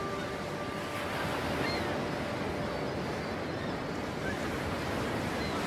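Sea surf washing onto the shore, a steady rushing noise. The last held music tones die away about a second in.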